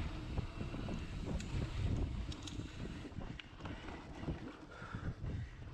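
Mountain bike riding fast down a dirt singletrack: wind buffeting the microphone and tyres rumbling over the trail, with scattered sharp clicks and rattles from the bike over bumps. It eases a little in the middle, then picks up again.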